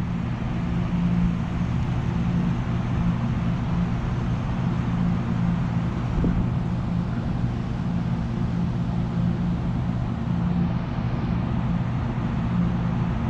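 Strong wind buffeting the microphone, making a steady low rumble with a constant low hum underneath.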